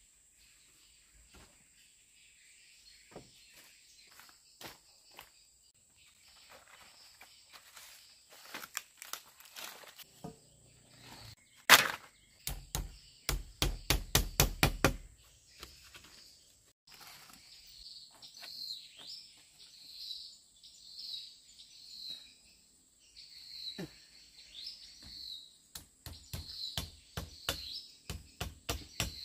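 Scattered knocks and clicks of something being handled, with a quick run of heavy thuds about twelve seconds in. Under them runs a steady high insect drone, and in the second half a short chirping call repeats about once a second.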